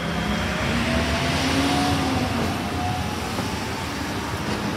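Iyotetsu 5000-series low-floor tram passing along a street track, its running noise swelling about one to two seconds in and then easing as it moves away. A low motor whine rises slightly in pitch through the passing.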